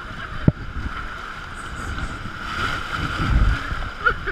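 Whitewater rapids rushing and splashing around an inflatable raft, with wind buffeting the microphone and a heavy low rumble past the middle. One sharp knock comes about half a second in.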